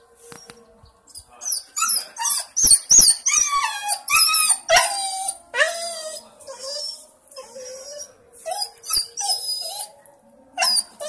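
Dog crying: a long string of high whining cries and yelps that bend up and down in pitch, some drawn out into short howls, in two runs with a brief break in the middle.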